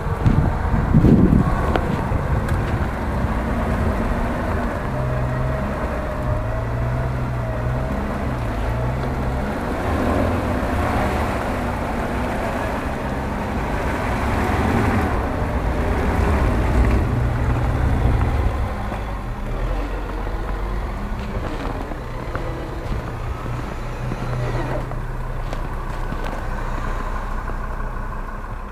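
Jeep Grand Cherokee engine working through deep mud, its revs rising and falling as it pushes along the ruts. It grows louder in the middle, then eases off after about 18 seconds.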